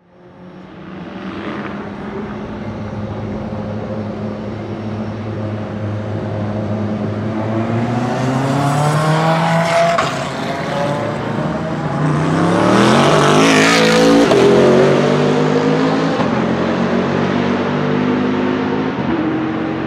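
2018 Bentley Continental GT3 race car's 4.0-litre twin-turbo V8 accelerating past and away, its note climbing through the gears and dropping back at upshifts about ten and fourteen seconds in. It fades in at the start and is loudest as the car goes by.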